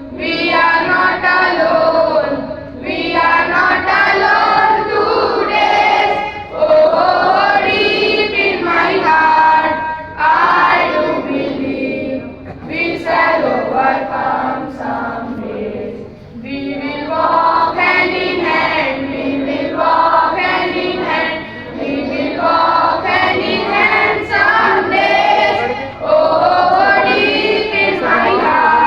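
A group of schoolchildren singing together in unison, a song sung in phrases with short breaths between them.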